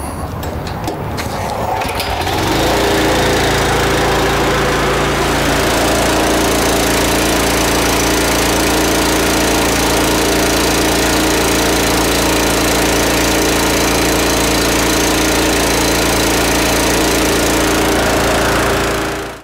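Small gasoline engine of a cold-water pressure washer running steadily and driving its pump, getting louder about two seconds in.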